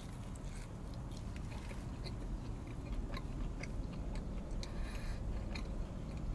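A man biting into and chewing a slice of pizza with a crisp crust: many small, irregular crunches and mouth clicks over a steady low hum.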